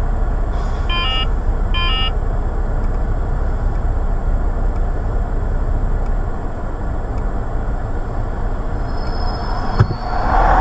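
Steady low rumble of an idling car and street traffic, heard from inside a car stopped at a light. There are two short high beeps, about a second in and again a second later, and a sharp click near the end.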